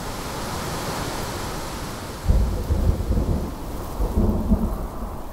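Thunder rumbling over a steady hiss, with a deep rumble starting about two seconds in and a shorter one near four seconds.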